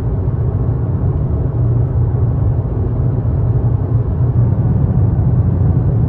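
Steady low rumble of a car driving, heard from inside the cabin: engine and road noise.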